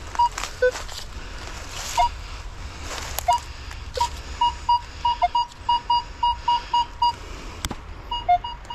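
Minelab Equinox 700 metal detector beeping as its coil sweeps over a buried target: short beeps, mostly at one high pitch with an occasional lower one, coming several a second through the middle. The repeated high tone is the detector's signal for a high-ID target.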